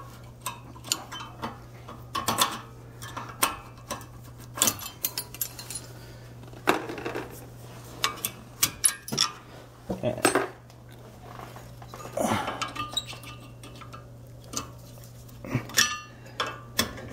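Metal clinking, clicking and scraping as a flathead screwdriver and hands work the pad clips and old brake pads out of a Lexus IS300's front brake caliper bracket. Irregular sharp clicks, with a few short scrapes.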